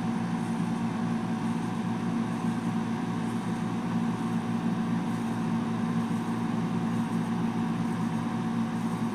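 Portable spot air conditioner running: a steady hum with a low drone and a faint higher tone over the even rush of its fan.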